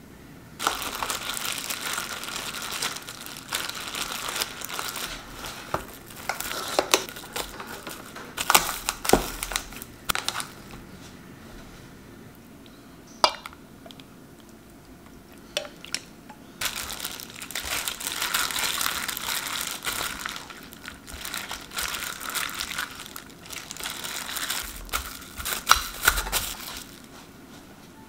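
Kitchen handling sounds from marinating raw beef short ribs in stainless steel pans and bowls: two long stretches of noisy rustling and working sounds, broken by a quieter gap, with a few sharp clicks and knocks.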